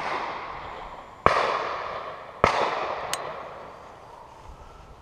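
Shotgun shots: a lighter crack at the start, then two loud shots about a second apart, each followed by a long rolling echo that fades away.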